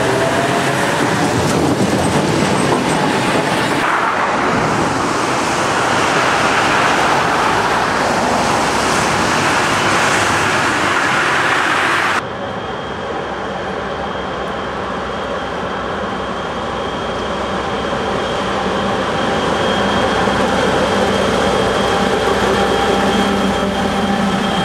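Trams rolling past on street track with loud, steady wheel-on-rail noise. About halfway through, this gives way to a pair of diesel locomotives hauling a passenger train past, their engines giving a steady hum under a thin high whine.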